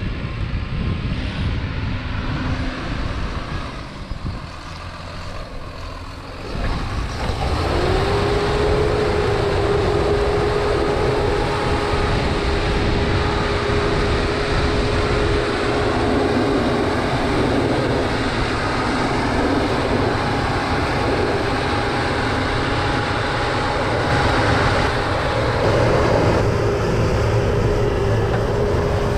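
John Deere tractor pulling a subsoiler through stubble, its engine running steadily under load. Quieter at first; from about seven seconds in it gets louder and a whine rises, then holds steady.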